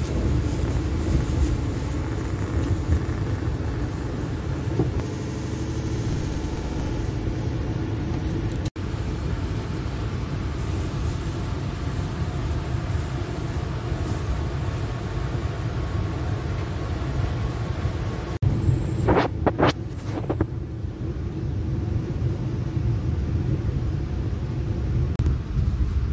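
Argo Cirebon express train heard from inside a passenger coach, running along the track with a steady low rumble. A few sharp knocks come close together about three-quarters of the way through.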